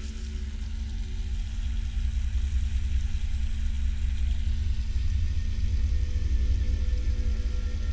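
Low, dark horror-film drone: a deep rumble with a steady low hum over it, swelling over the first couple of seconds and then holding.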